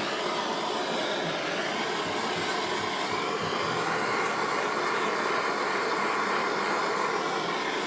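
Heat gun switched on and blowing steadily, a continuous fan-and-air noise heating the transmission case. It starts suddenly.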